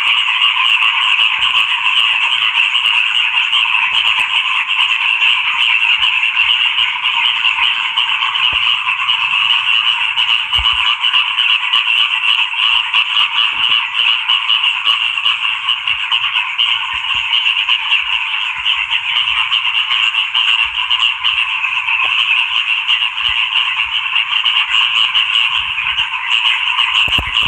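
Frogs croaking in a dense, unbroken chorus.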